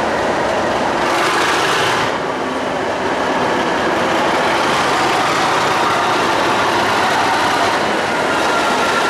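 Diesel locomotive engine running as the locomotive rolls slowly along the platform and passes close by. A thin high tone comes in near the end.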